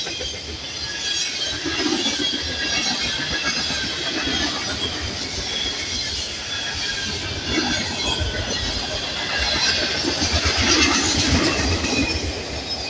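Freight cars of a fast-moving Norfolk Southern freight train rolling past close by: steel wheels clattering over the rail in a recurring rhythm, with a thin high squeal from the wheels.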